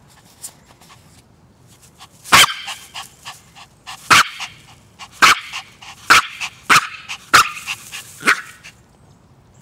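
Toy rat terrier barking: about seven short, sharp barks, the first about two seconds in, then roughly one a second.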